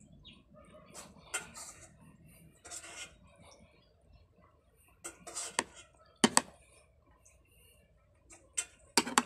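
Metal spoon and fork clinking and scraping against a plate while eating, a scattering of sharp, irregular clinks, the loudest about six seconds in and again near the end.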